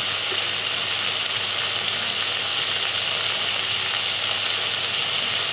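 Tomato, onion and capsicum masala sizzling steadily as it fries in a kadhai.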